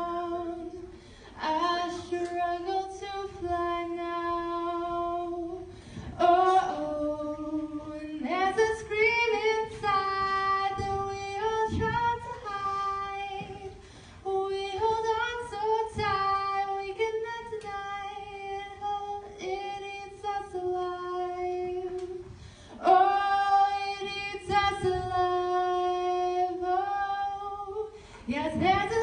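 A woman singing a cappella, one unaccompanied voice holding long sung notes with short breaks between phrases.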